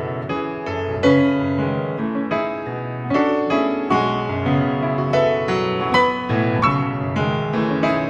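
Background piano music: a flowing line of notes, a new one struck about every half second, each fading away after it is struck.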